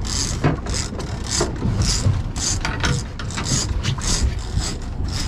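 A big-game fishing reel being cranked against a yellowfin tuna on the line: a rhythmic mechanical grinding from the reel, about two strokes a second, over a steady low rumble.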